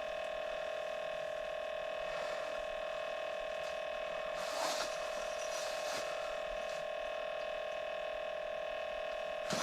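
A steady electronic whine held at one pitch with several overtones, with a few faint clicks near the middle.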